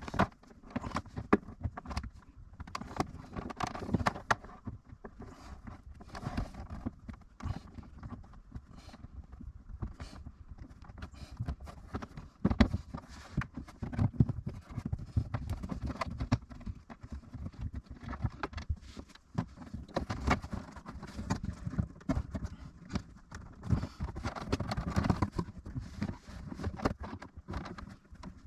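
Irregular clicks, knocks and rustling of hands and tools handling car parts and wiring.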